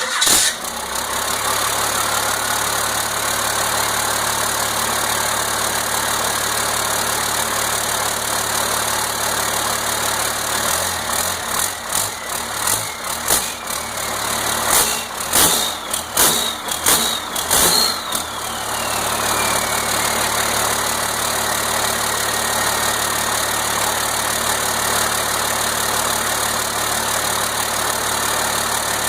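Freshly rebuilt 1992 Cummins 5.9 12-valve inline-six diesel firing up on its first start since the rebuild and settling into idle. From about 11 to 18 seconds in it is revved in a series of short blips, and a whistle winds down after the last one before the engine returns to a steady idle.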